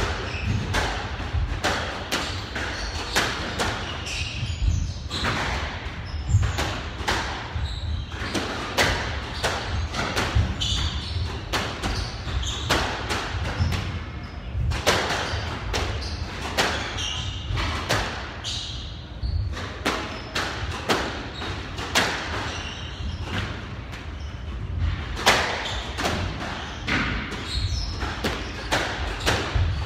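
Squash rally: the rubber squash ball is struck hard by the rackets and smacks against the front and side walls, an irregular series of sharp hits about one to two a second.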